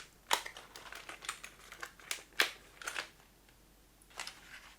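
Sharp plastic clicks and taps from a Logitech K375s keyboard being handled, with its fold-out tilt legs snapped open and shut. There are a few separate clicks, the loudest about two and a half seconds in.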